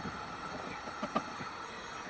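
A steady hum with a few short, light clicks or knocks about a second in.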